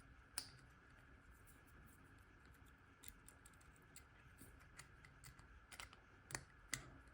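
Faint, irregular clicks of small metal lock parts being handled: the discs and sidebar of an old Abloy Profile disc-detainer padlock being worked by hand, with a few clicks in the second half.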